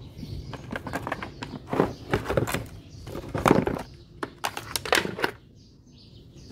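Clicks and knocks of items being handled in a hard plastic tool case, a run of sharp knocks over about five seconds, the loudest about three and a half seconds in.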